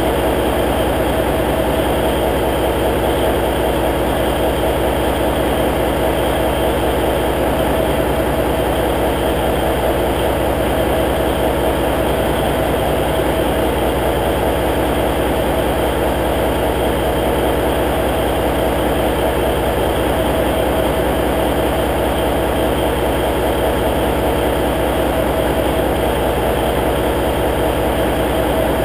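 Cummins N14 inline-six diesel in a semi-truck tractor idling steadily, warming up after a cold start in near-freezing weather.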